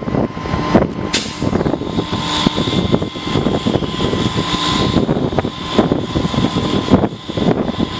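Heavy rotator tow truck's diesel engine running steadily during a recovery, with a thin steady whine and a few knocks, about one second in.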